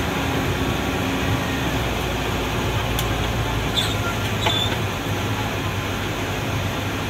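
Steady engine hum and tyre noise heard inside a car's cabin as it drives slowly, with a light click about three seconds in.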